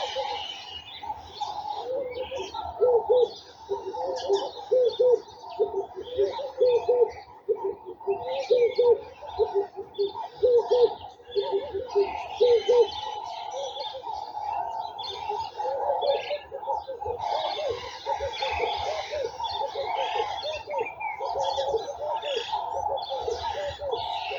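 Garden birdsong: many small birds chirping, with a quick run of repeated low notes from about two to thirteen seconds in, then a busier, denser chatter near the end.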